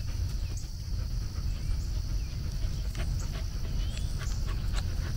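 Steady high-pitched buzz of insects over a low rumble on the microphone, with scattered soft clicks and a few brief chirps.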